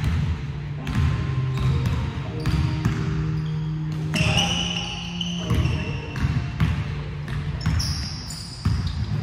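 Basketballs bouncing on a hardwood gym floor during a pickup game, repeated knocks throughout, mixed with players' indistinct voices calling out across the court.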